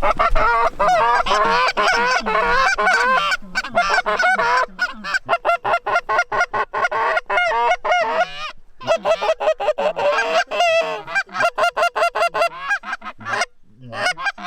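Canada goose calls blown hard by hunters: a fast, continuous run of honks and clucks, several notes a second, calling geese in to the decoys. The run breaks off briefly twice, once a little past halfway and once near the end.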